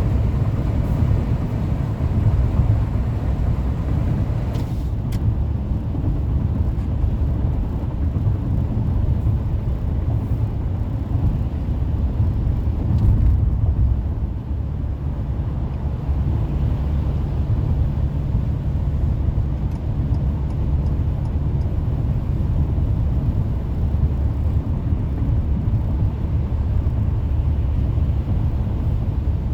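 Steady road noise of a car cruising on a freeway: a low tyre-and-engine rumble with a few faint ticks.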